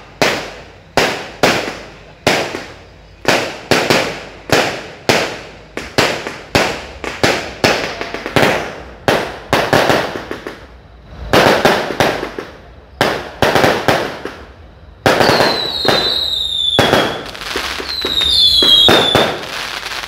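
Fireworks going off in quick succession: sharp bangs about two or three a second, each fading quickly. In the last quarter, several falling whistles from whistling fireworks sound over the bangs.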